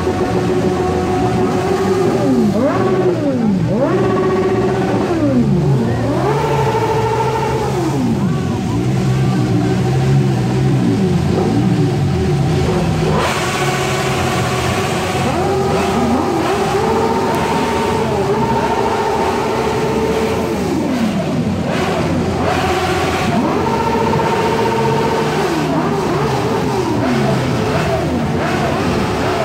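Several motorcycle engines revved hard again and again, overlapping: each climbs, is held at high revs for a second or two, then drops back.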